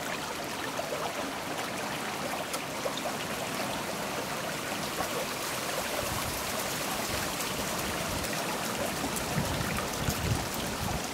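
Steady rush of water from a waterfall, with a few low rumbles near the end.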